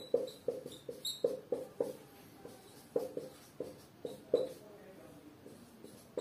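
Whiteboard marker writing on a whiteboard: a run of short, irregular squeaky strokes, about two or three a second, as letters and an arrow are drawn.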